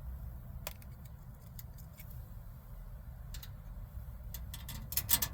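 Small metal clicks and taps of door-handle and lock hardware and little bolts being handled inside a car door, with a quick cluster of louder clicks near the end, over a steady low rumble.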